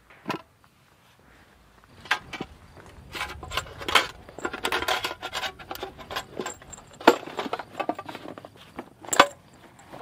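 Camping gear being packed by hand: a metal tin knocks down on a wooden railing near the start, then irregular metal clinks and knocks mix with rustling of a canvas bag, with two sharp knocks about seven and nine seconds in.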